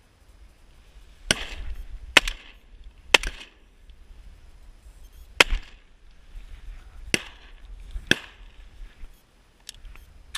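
A string of sharp shotgun shots, seven or so spaced one to two seconds apart, each with a short echo.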